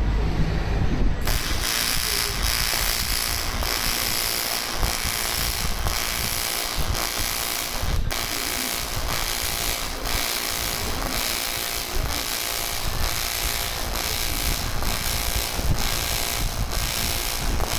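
AC TIG welding arc on aluminium, striking about a second in and then running as a steady crackling buzz that pulses about twice a second.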